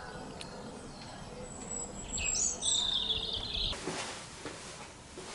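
A small bird singing in the background: a quick, high twittering phrase about two seconds in that cuts off abruptly, followed by a brief hiss.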